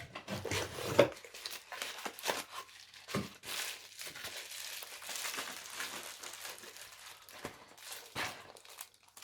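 Packaging crinkling and rustling as camera parts are unwrapped and taken out of their box, with scattered sharp clicks and knocks. The loudest knock comes about a second in.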